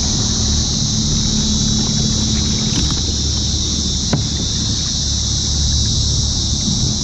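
Electric motor of a War Horse motor kayak running in forward gear. Its steady hum stops about three seconds in, with a steady high-pitched hiss throughout.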